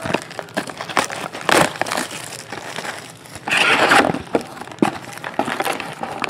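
Cellophane shrink wrap crinkling and tearing as it is stripped off a sealed trading-card box, then the cardboard lid rustling as it comes off, with the longest burst about three and a half seconds in. Small clicks and taps between.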